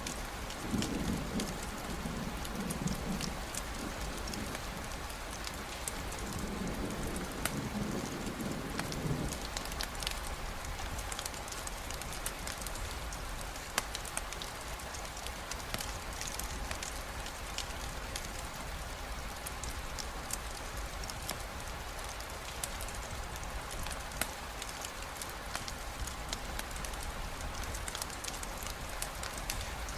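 Steady rain falling, with scattered sharp ticks throughout. A low rumble of thunder rises twice during the first nine seconds or so.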